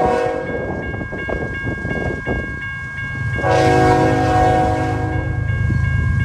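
Nathan K5HL five-chime horn on an approaching CN GE Evolution-series (GEVO) locomotive, sounded for a level crossing: one blast ends just after the start, then a long blast runs from about halfway to near the end. Between the blasts a level-crossing bell rings evenly, and the locomotive's engine rumble comes in under the second blast.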